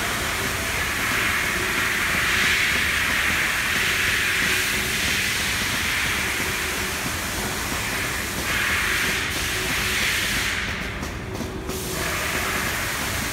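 A steady, loud hiss that thins out briefly a little before the end.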